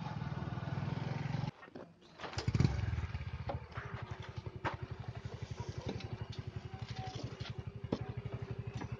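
Motorcycle engine and riding noise that breaks off after about a second and a half. Then a motorcycle's engine idles at the roadside with an even, rapid beat.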